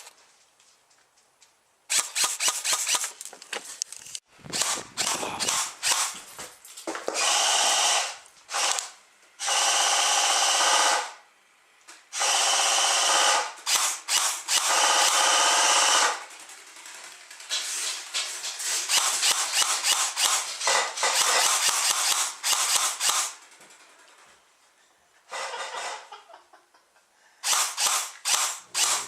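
Airsoft guns firing in bursts: rapid strings of shots, and two long full-auto bursts of several seconds each with a steady mechanical whine, like a power drill.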